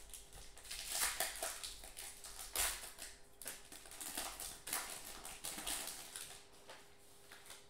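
Foil trading-card pack wrapper crinkling and tearing as it is pulled open by hand, an irregular string of crackly rustles.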